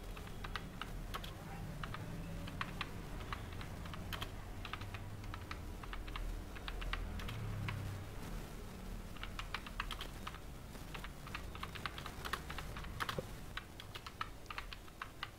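Faint tapping of computer keyboard keys in irregular bursts of keystrokes as words are typed, over a low steady hum.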